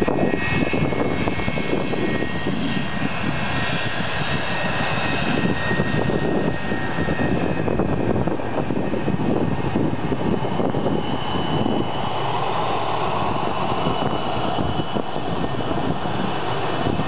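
McDonnell Douglas MD-88 airliner taxiing past at close range, its two rear-mounted Pratt & Whitney JT8D turbofans running at taxi power: a steady jet rumble with a high whine. The whine changes pitch about twelve seconds in, as the engines come level.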